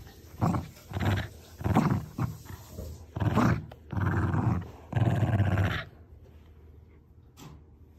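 Shiba Inu growling in play while tugging on a toy: a string of short rumbling growls, then two longer ones, stopping about six seconds in.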